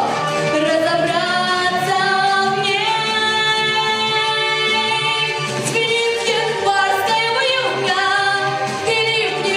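A female solo voice singing a slow song over a backing track, holding long notes with vibrato over a steady low rhythmic accompaniment.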